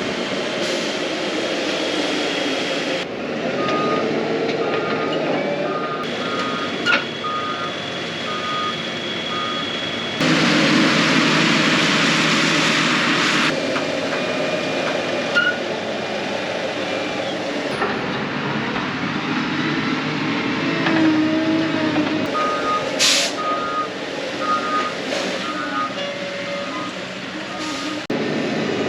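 Heavy harvest machinery running, with a reversing alarm beeping in a steady series, twice. The machine noise changes abruptly several times.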